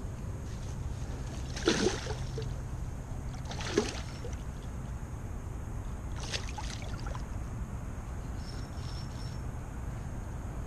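Hooked carp splashing at the water's surface as it fights the line, three splashes about two seconds apart, the first the loudest, over a steady low hum of machinery.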